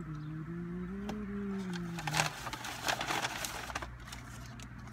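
A person humming one drawn-out note with the mouth closed for about two seconds, its pitch rising a little and falling. Then paper food wrappers rustle and crinkle.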